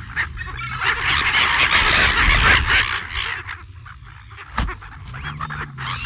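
Many birds calling at once in a dense, overlapping chorus with honking calls, loudest about one to three seconds in and thinning out after. A low steady hum runs underneath.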